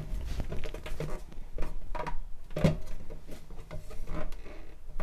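Clear plastic suction-cup sink caddy being handled and pressed onto the wall of a stainless steel sink, giving a scatter of irregular light knocks and taps, the loudest a little past halfway.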